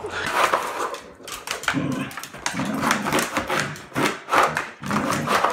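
A dog paws and scrapes at a plastic ball-track toy on a tile floor: a run of short scratches and clatters. Between them come several short low dog grumbles.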